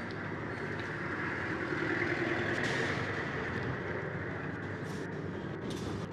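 Steady outdoor street noise, swelling to its loudest about two to three seconds in and then easing back.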